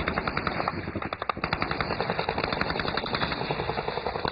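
Automatic weapons firing in a heavy, near-continuous exchange, many shots a second in overlapping bursts.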